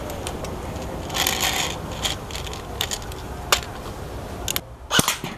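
Plastic airsoft AK-74 magazine being handled, a thumb working at its feed lips to push out the BBs still loaded in it: scattered small clicks and rubbing, with a brief rustle about a second in and a few sharper clicks near the end.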